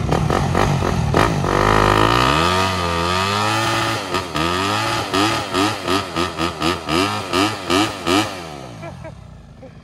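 Yamaha YZ dirt bike engine revving hard in a burnout, its rear tyre spinning on wet plywood and smoking. It holds high revs for about two seconds, swings down and up, then gives quick throttle blips about three a second before dropping back near the end.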